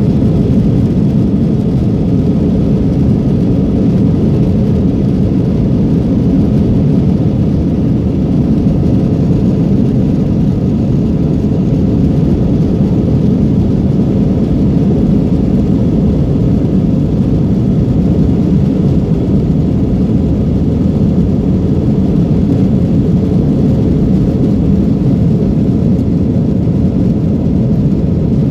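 Airbus A321 jet engines and airframe heard from inside the passenger cabin while the airliner taxis: a steady, even low rumble with no rise in thrust.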